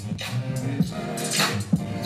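Hip hop music played by the battle DJ: a deep bass line under regular drum hits.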